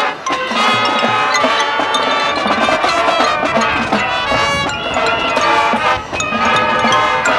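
High school marching band playing its field show: wind instruments hold stacked chords over front-ensemble percussion. There are short breaks in the sound just after the start and about six seconds in.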